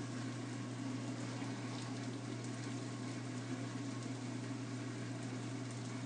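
Eggs frying in a pan on a lit burner: a steady sizzling hiss over a low, constant hum.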